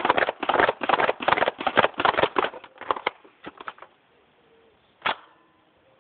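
Buzzbee Range Master toy air blaster being pumped quickly, about four to five strokes a second. The pumping stops about two and a half seconds in, a few slower strokes follow, then a single sharp pop about five seconds in as the dart is fired.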